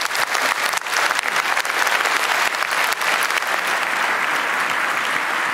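Auditorium audience applauding: steady, dense clapping from a large crowd that cuts off abruptly at the end.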